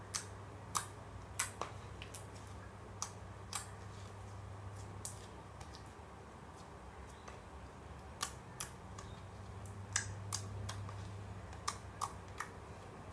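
Clear water slime being poked, pressed and squeezed by hand, giving small wet clicks and pops at irregular moments, about a dozen in all, over a low steady hum.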